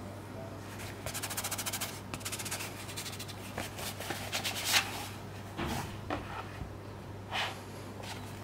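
Gloved hands handling the cardboard slipcase and booklets of a Blu-ray set: a quick run of fine clicks, then rubbing and rustling of card, with a sharp tap about halfway through. A steady low hum runs underneath.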